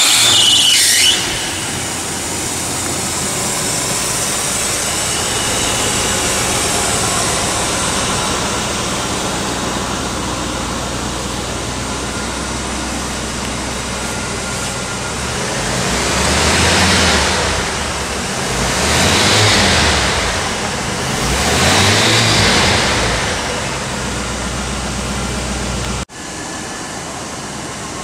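A 1986 Oldsmobile Cutlass Supreme engine catches with a short loud burst and settles into a steady idle. About two-thirds of the way through it is revved three times, each rev rising and falling back to idle. Shortly before the end the sound drops off suddenly to a quieter, steadier engine sound.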